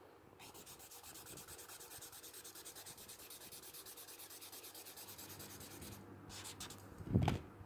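Paper stump rubbing graphite shading into textured drawing paper in quick, even back-and-forth strokes. It is a soft, rhythmic scrubbing that stops about six seconds in, and a brief thump follows near the end.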